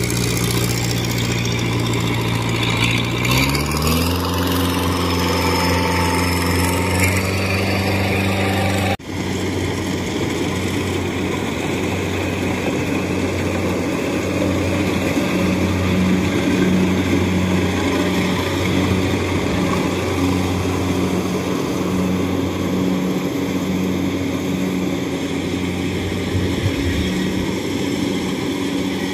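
Crawler rice combine harvester's engine running steadily while harvesting, its pitch rising a few seconds in as it revs up. There is a sudden break about nine seconds in, then the same steady running.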